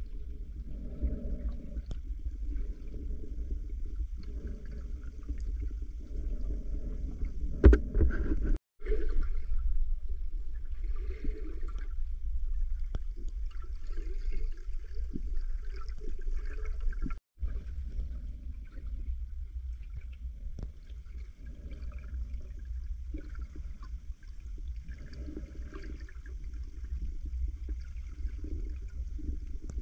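Muffled water movement and gurgling heard through a submerged camera, over a steady low rumble. There is a sharp knock about eight seconds in, and the sound cuts out briefly twice.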